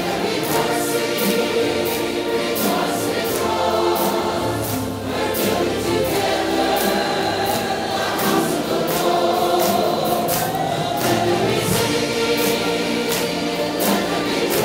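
Background gospel music: a choir singing with instrumental backing and a steady percussion beat.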